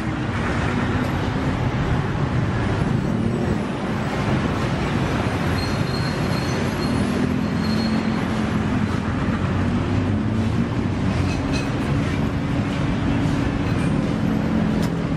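Steady street noise from traffic, with a low engine hum running under it.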